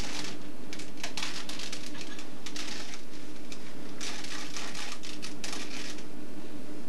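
Handheld plastic puzzle cube, likely a Rubik's cube, being turned rapidly by hand: bursts of quick clicking and clattering, each lasting up to about a second, with short pauses between them.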